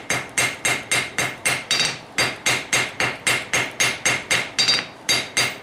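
Forging-hammer blows on a red-hot thin steel bar laid on an anvil, about four strikes a second, with a bright ringing note on each blow, as the bar is drawn out to a taper.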